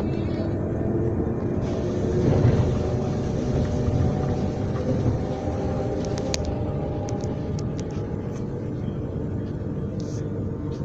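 Transilien Line P commuter train running with a steady low rumble. It swells louder about two seconds in, a faint tone rises slowly a little later, and a few sharp clicks or rattles come around the middle.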